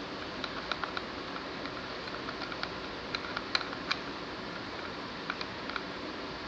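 A pencil stirring clear glue and body lotion in a small container, giving irregular light clicks and taps over a steady hiss.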